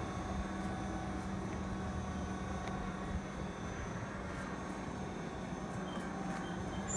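Marina boat hoist's motor humming steadily as it holds and works the slung powerboat, the hum cutting out about three seconds in.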